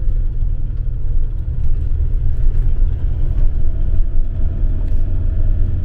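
Motorhome driving slowly, a steady low engine and road rumble heard from inside the cab.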